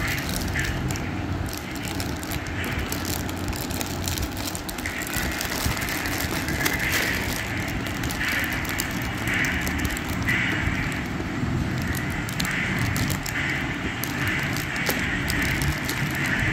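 Clear plastic wrapping crinkling and crackling as packs of bangles are handled close to the microphone, over a steady background noise.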